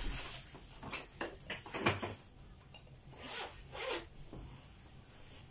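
Kitchen tongs scraping and clicking against an enamel bowl as fried sausage slices are picked up and laid on plates. The sound comes as about five short scraping strokes.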